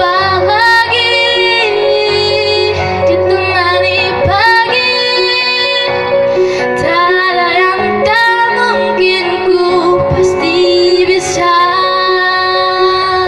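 A schoolgirl singing a melodious song into a microphone, amplified through PA loudspeakers, over a steady musical accompaniment.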